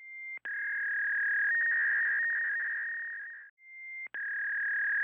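Electronic signal tone from a Japanese municipal outdoor disaster-prevention loudspeaker system, sounded twice: each a long steady high tone of about three seconds that swells and fades, starting with a click and a brief higher tone.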